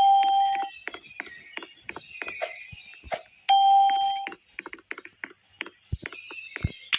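Two long, steady electronic beeps, the first right at the start and the second about three and a half seconds later, over a busy patter of short clicks and chirps.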